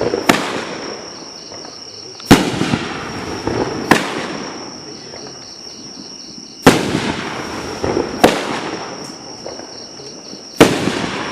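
Dominator Mammoth Strobe Mini 200 gram firework cake firing a shot every one to four seconds, six shots in all. Each shot is a sharp thump followed by crackling that fades over a second or two.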